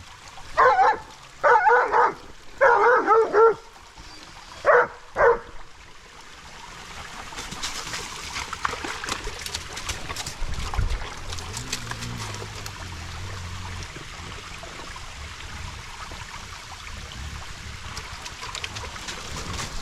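A dog barking in a quick series of about five or six barks over the first five seconds. After that comes a steady rushing noise with scattered crackles, without barks.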